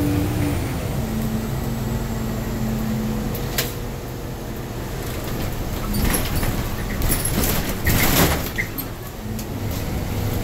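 An older city transit bus running, heard from inside its cabin: a steady engine and drivetrain drone, with a short whine starting about a second in. Between about six and eight and a half seconds in come a run of rattles and knocks from the body as it rides rough.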